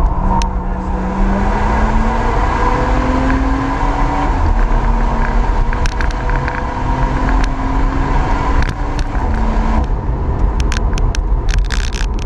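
A tuned BMW M140i's turbocharged 3.0-litre straight-six with an aftermarket valved exhaust, heard from inside the cabin, pulling hard on track under heavy road and wind noise. The engine note climbs and falls back about four seconds in and again about nine seconds in. A run of sharp clicks comes near the end.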